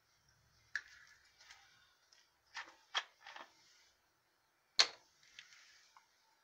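Plastic cup and paint bottle being handled: a few sharp clicks and knocks, the loudest about five seconds in, with light rustling between them.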